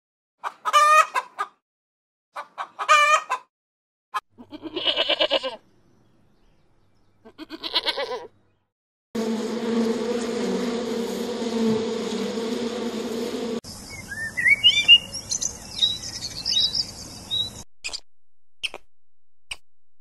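A run of animal sounds: several short wavering calls in the first eight seconds, then honeybees buzzing on the comb, a steady hum that starts abruptly and lasts about four seconds, then a series of short rising chirps.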